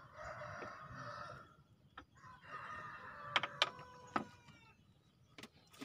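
A rooster crowing in two long drawn-out phrases, with a few sharp clicks in the middle.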